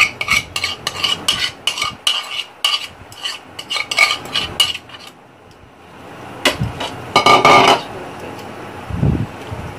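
Quick clinks and scrapes against a plate as thick masala is scraped off it into an aluminium pressure cooker. Each clink rings briefly. After a short lull, a longer ringing clatter of dishes comes about six and a half seconds in, then a dull thump.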